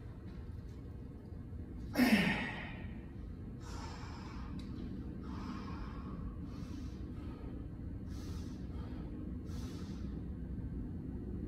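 A lifter's loud, falling grunt of effort about two seconds in as he drives a 120 kg back squat up out of the bottom, followed by about five heavy breaths while he stands under the bar.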